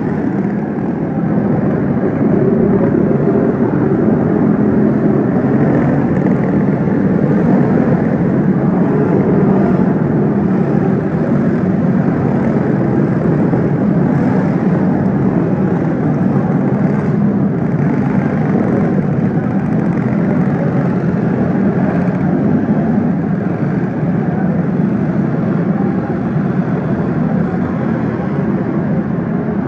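A pack of dirt-track racing karts running at race speed around an indoor arena oval, many engines blending into one steady, loud buzz that echoes in the hall.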